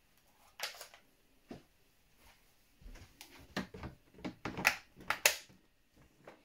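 Short plastic clicks and knocks of a DeWalt FlexVolt 54V battery pack being handled and slid onto the battery mount of a DeWalt DCS575 cordless circular saw, with a few scattered clicks at first and a cluster near the end, the two loudest as the pack seats.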